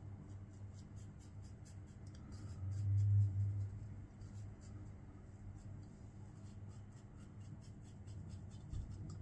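Safety razor scraping through lathered stubble on the upper lip in a rapid series of short, faint scratching strokes. A brief low rumble about three seconds in.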